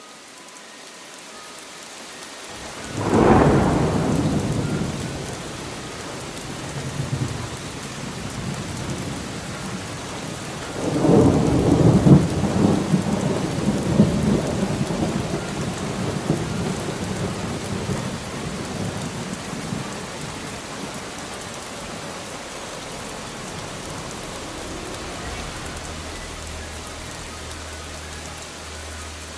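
Steady rain with two peals of thunder: a sharp one about three seconds in that dies away over a couple of seconds, and a longer, louder rumble starting about eleven seconds in that fades out over several seconds.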